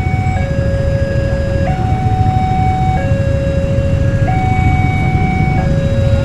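Two-tone electronic warning alarm alternating steadily between a low and a higher tone, each held about a second and a quarter, over a constant low rumble. Near the end a further chord of tones joins in.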